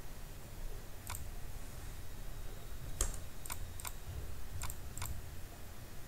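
Computer mouse buttons clicking: six sharp, irregularly spaced clicks, the loudest about three seconds in, over a low steady background hum.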